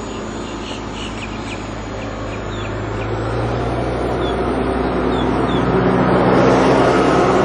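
A steady engine rumble that grows louder from about halfway through, with a few short high-pitched chirps over it.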